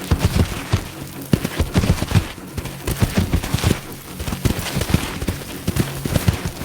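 Rapid, irregular heavy hoofbeats of galloping giraffe on dry ground, over a low sustained musical drone.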